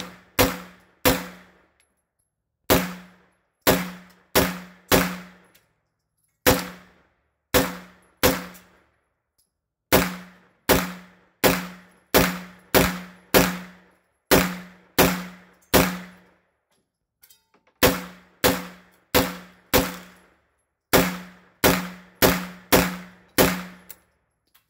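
PTR 9CT 9mm MP5-clone pistol fired semi-automatically: about thirty shots, each about half a second to a second apart, in strings of three to ten with short pauses between them. The gun cycles through the magazine without a stoppage.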